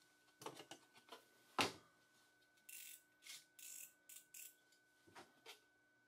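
Plastic clamshell package of RAM modules being handled: a few clicks and one sharp knock about one and a half seconds in, then several short bursts of plastic crackling, and two small clicks near the end.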